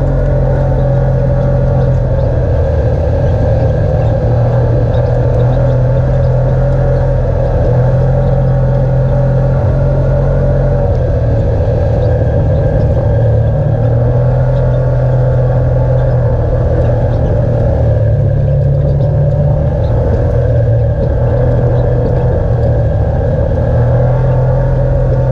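Engine of a side-by-side off-road vehicle running steadily under way, an even drone with no marked revving.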